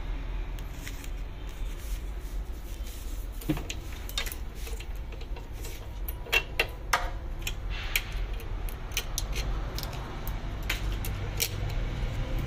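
Scattered small clicks and knocks of a blocked plastic spectacle lens being handled and clamped into the chuck of an automatic lens edging machine, over a low steady hum.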